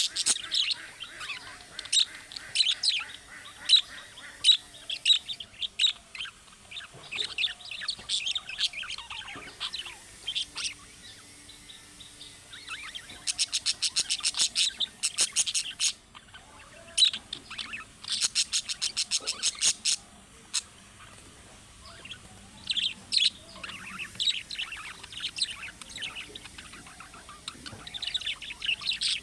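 Budgerigar chirping and warbling, with two runs of rapid, evenly repeated chatter about halfway through.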